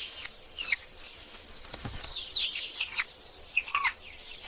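Small birds chirping and tweeting: a quick run of short, high chirps over the first three seconds, then a few more near the end.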